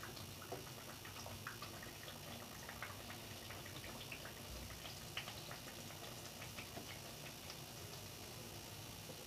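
Papri, flour-and-semolina dough crisps, deep-frying in medium-hot oil in a kadai: a faint steady sizzle with many small scattered crackles and pops.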